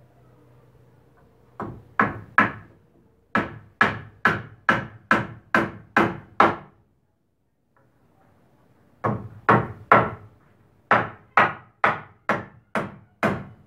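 Hammer driving nails into a wooden brace board on slab shoring posts: a run of about a dozen quick blows, roughly three a second, then a pause of about two seconds, then another run of about a dozen blows.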